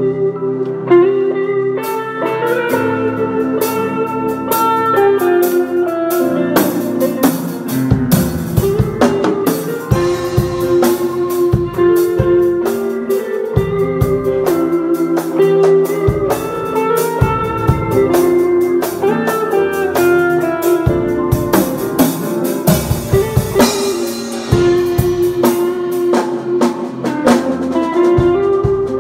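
Band rehearsing: guitar playing over a drum kit, with the drums coming in about two seconds in.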